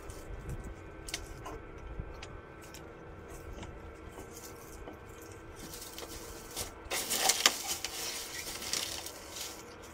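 Low steady hum of a wintered honey bee cluster inside a wooden hive, with scattered light clicks and a louder stretch of rustling and scraping about seven seconds in.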